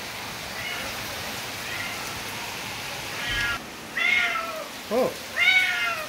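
A house cat meowing repeatedly through a door, asking to be let in. The first calls are faint, and from about three seconds in come louder, drawn-out meows about once a second.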